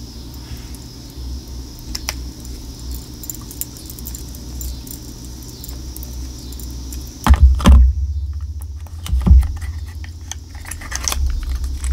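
Lip gloss tubes and their boxes being handled. There are small scattered plastic clicks and clinks, and louder bumps and knocks about seven seconds in and again about nine seconds in.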